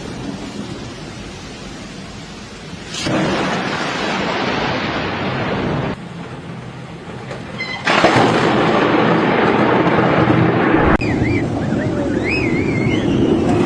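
Thunderstorm noise: a heavy rush of rain with rumbling, jumping abruptly louder about three seconds in and again near eight seconds. Near the end a faint wavering high voice-like cry sounds through it.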